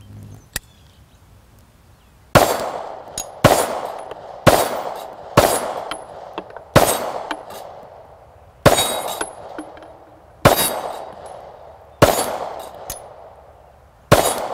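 SIG M18 9mm pistol firing nine single shots at an unhurried pace, one every one to two seconds, each shot trailing off in an echo. A small click comes before the first shot.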